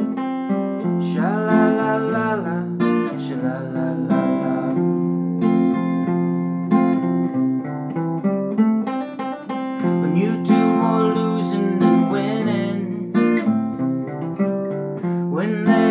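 Acoustic guitar with a capo, played as an instrumental break of picked notes and strummed chords.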